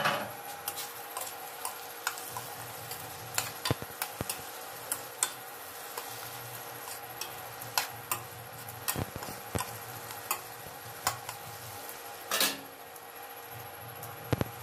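Metal spatula tapping and scraping against a stainless steel kadhai while stuffed bitter gourds and onion masala are stirred: irregular clicks and scrapes, with a louder clatter at the start and again about twelve seconds in, over a faint steady hum.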